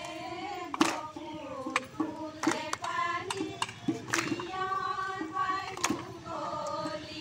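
Women singing a Bihu song together in unison, with sharp claps or clacks cutting in at an uneven beat.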